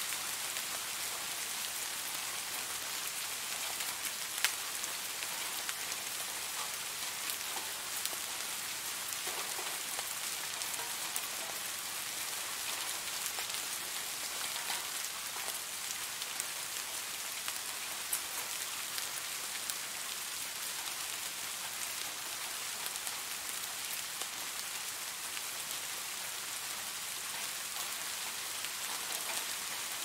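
Steady rain falling: an even hiss dotted with scattered drop ticks, one louder tick about four seconds in.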